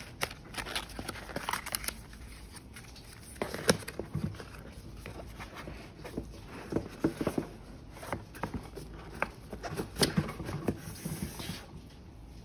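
Gloved hands handling cardboard and paper packaging: paper inserts rustling and a cardboard box tray being knocked and slid, with scattered light taps. The sharpest knocks come about four seconds in and again about ten seconds in.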